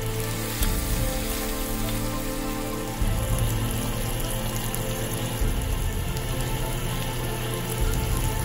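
Onions and tomatoes sizzling in hot oil in a steel kadai, a steady crackling sizzle. Soft background music with sustained chords plays over it, the chord changing about every two and a half seconds.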